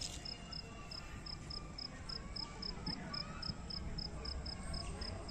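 A cricket chirping steadily, a high-pitched chirp repeating about four times a second, over a faint low background hum.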